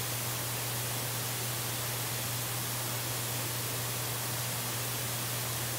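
Steady static hiss with an even low hum underneath, unchanging throughout: the noise floor of the nest camera's microphone feed.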